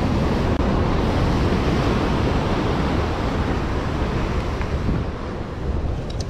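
Sea surf washing against the shore, with wind buffeting the microphone in a heavy low rumble.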